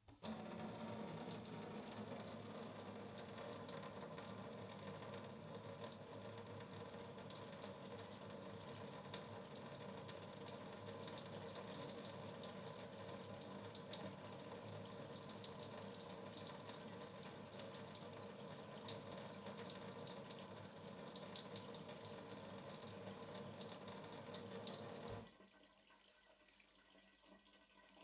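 Water running steadily from a sink tap into the basin. The flow stops abruptly near the end.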